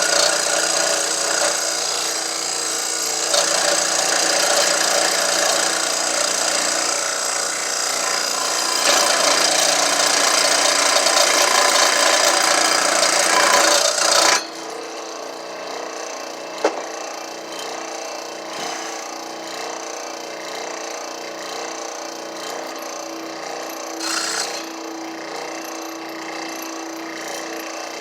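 A tool working a piece of wood with a steady, loud rasping noise for about fourteen seconds, then stopping suddenly. A quieter steady background follows, with a single sharp click and a brief burst of scraping later on.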